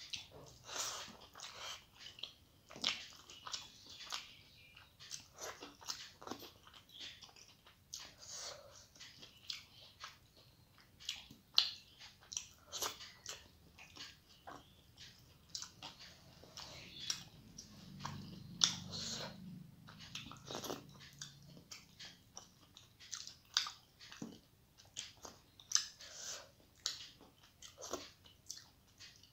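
Close-miked eating sounds of a person chewing rice and mustard fish curry taken by hand: irregular wet chewing, lip smacks and sharp mouth clicks, several a second.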